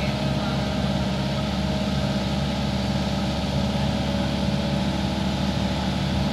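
Hitachi excavator's diesel engine idling steadily, an even low hum.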